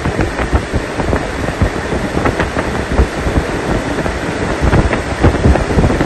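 Rooftop air-conditioning package unit running, its condenser fan blowing warm air straight up past the microphone so that the airflow buffets it in rough, uneven gusts.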